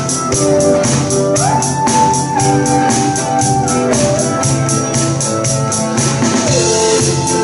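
Band music: organ-toned keyboard chords and a sliding melodic line over a drum beat, with a hi-hat or tambourine ticking steadily about four times a second.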